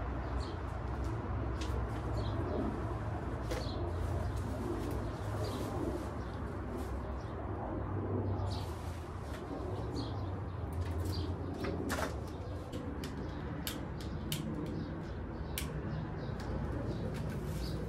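Outdoor backyard ambience: a steady low rumble with scattered short clicks and chirps, and birds cooing, which PANN files under pigeon or dove.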